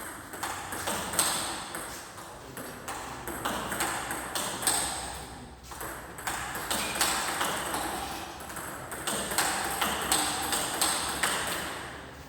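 Racket-sport rally: a string of quick, sharp, ringing hits of a ball, several a second, coming irregularly.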